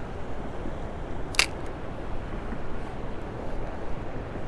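A single sharp click about a second and a half in, over steady outdoor background noise.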